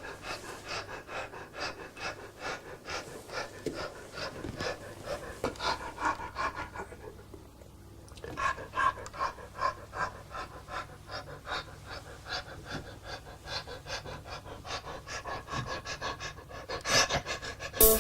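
A person panting heavily in quick, rhythmic breaths, about three a second, with a short pause about eight seconds in.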